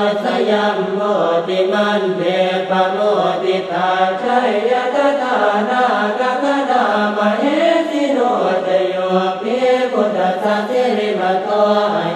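Buddhist monk chanting Pali verses without a break, in the Thai monastic style. The voice runs on steadily and rises and falls in pitch.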